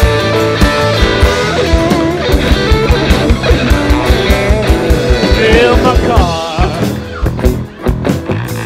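Live rock band playing an instrumental break: an electric guitar lead with bending notes over a steady drum beat and bass. The sound thins out briefly near the end.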